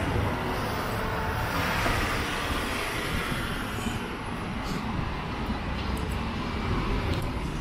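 Steady city street noise with a low rumble of passing traffic.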